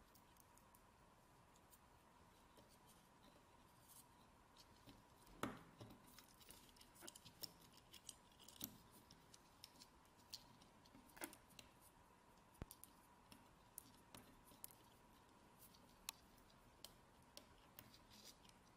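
Faint, irregular clicks and small scrapes of jumper-wire pins being pushed into an Arduino Uno's header sockets, with a louder click about five seconds in and another about eleven seconds in.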